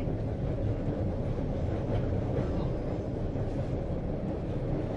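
Steady rumble and rattle of a moving passenger train, heard from inside the car.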